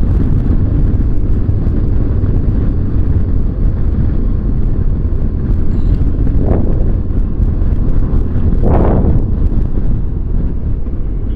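Motorcycle riding at road speed under power, heard from the bike: a steady engine drone mixed with heavy wind rush. Two brief louder whooshes rise out of it, about two-thirds of the way through and again a couple of seconds later.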